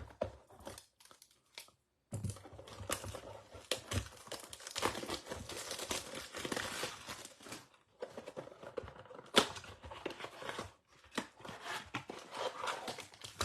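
Plastic wrapping on a box and packs of baseball trading cards being torn open and crinkled, in two bouts with a short pause about eight seconds in and one sharp snap soon after.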